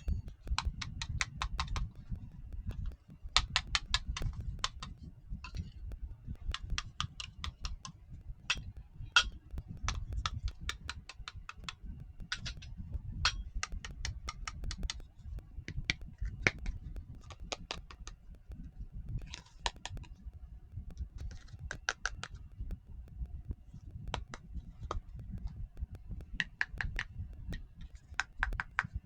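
Small plastic toy kitchen pieces being handled, in quick runs of light clicks and taps that come in short bursts every second or two, over a low rumble of handling.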